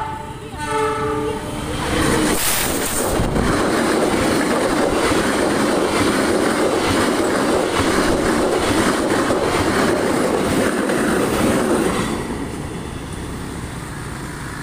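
A diesel locomotive's horn sounds a short two-note blast about a second in, just after an earlier blast ends. Then a locomotive-hauled passenger train passes close by, with a loud rush of steel wheels on rail and quick clicking over the rail joints. The noise eases off over the last couple of seconds.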